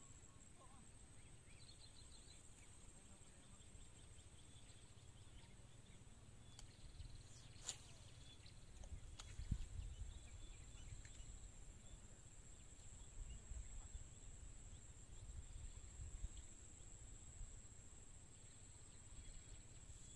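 Near silence on a riverbank: a faint, steady, high-pitched insect drone over a low rumble of wind on the microphone, with one sharp click about halfway through.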